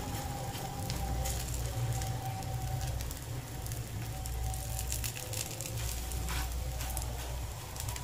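Banana-flower and gram-flour fritters sizzling in hot oil in a steel frying pan, with irregular crackles and spatters as fresh fritters are laid into the oil. A low steady hum runs underneath.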